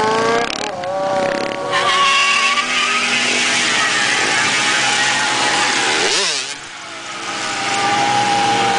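Honda CBR sport bike's inline-four engine held at high revs through a rear-tyre burnout, over the loud hiss of the spinning tyre. About six seconds in the revs drop briefly and climb back. In the first second or so a motorcycle engine revs up.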